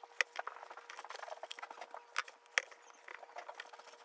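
Small scissors snipping through black paper, with paper rustling and a few sharper snips, about two seconds in and just after.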